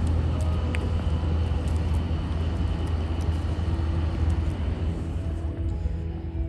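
Steady low drone of an inland cargo ship's diesel engine as the ship comes along the canal and passes close by, with a faint higher hum joining about two-thirds of the way in.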